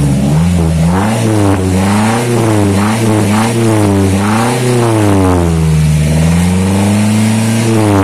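A pickup truck's engine revved up and down over and over through a newly welded-on Spoon Sport aftermarket muffler. The pitch rises and falls about once a second, dropping back and holding low for a couple of seconds before a last rev near the end.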